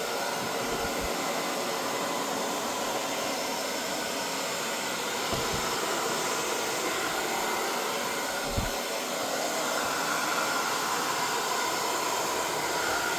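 Hair dryer running steadily on its full setting, a constant blowing rush with a faint whine, blowing out wet acrylic paint. A few brief low thumps, about five and eight and a half seconds in, sound over it.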